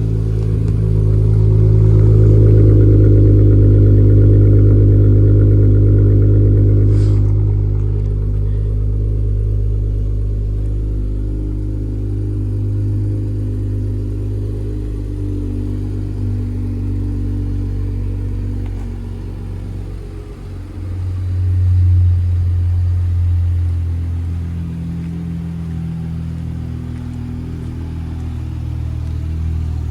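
Dodge Challenger's 3.6-litre Pentastar V6 engine running at a steady idle. About twenty seconds in, the engine note rises briefly and settles again.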